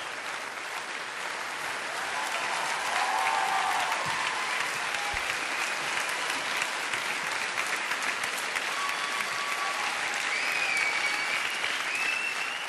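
Studio audience applauding steadily, with a few cheers rising over the clapping.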